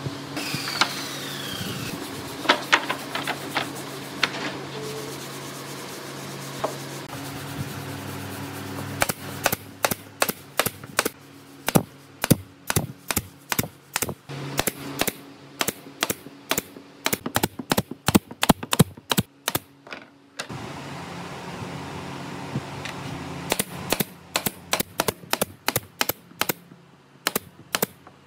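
Runs of quick, sharp taps or clicks, several a second, in two long spells, over a steady low machine hum. A few scattered knocks and a short falling squeal come near the start.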